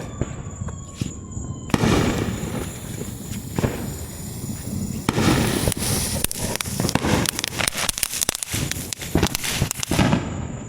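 A consumer ground fountain firework burning. It starts with a hiss about two seconds in, turns into dense, rapid crackling from about five seconds, and dies away near the end.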